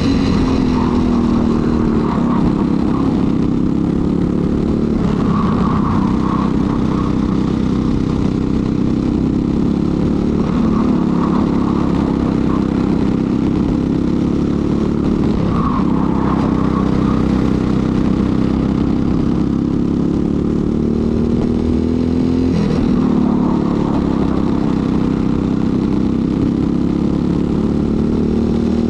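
Briggs & Stratton LO206 single-cylinder four-stroke kart engine running hard at racing speed, its pitch dipping and climbing again every few seconds.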